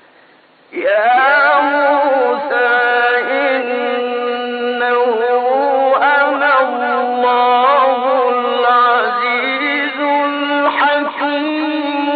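A male Quran reciter's voice chanting a long, drawn-out melodic phrase with wavering, ornamented pitch, starting just under a second in after a faint hiss.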